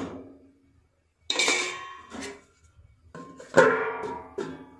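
A metal lid clanking against a metal cooking pan as it is set on, ringing after each strike. Two clanks, the first about a second in and the louder one about three and a half seconds in.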